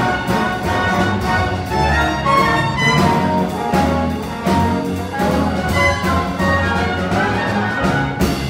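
Orchestral show music with brass, a brisk dance passage punctuated by sharp accented hits, with a loud hit near the end.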